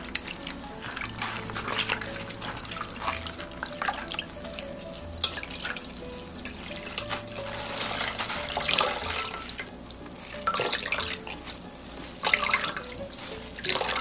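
A cloth bag of malt being kneaded by gloved hands in a stainless steel bowl of water: sloshing and splashing, then malt water streaming and dripping back into the bowl as the bag is lifted and wrung out, over background music.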